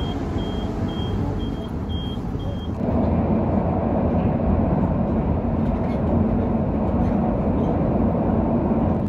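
KTM Komuter electric train running, a steady rumble and hum. For the first few seconds a high electronic beep repeats about twice a second. Then, about three seconds in, the beeping stops and the running noise abruptly becomes louder.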